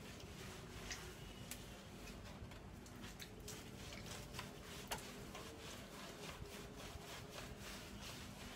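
Hands lathering shampoo into a wet dog's fur, a faint wet rubbing with scattered small squishy clicks.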